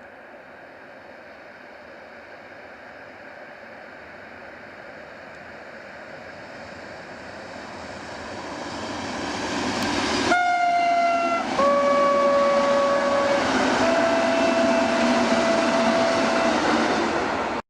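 A passenger train approaching, its running noise building steadily, then sounding its horn three times as it passes: a higher blast, a longer lower one, and a third long blast. The train noise stays loud under the horn and cuts off suddenly at the end.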